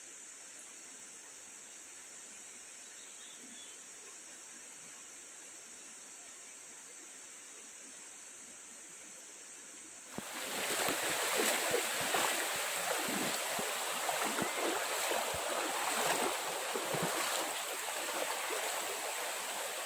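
For about ten seconds only a faint steady hiss with a thin high whine. About halfway through it cuts suddenly to the louder rush of a flowing stream, with many small irregular splashes.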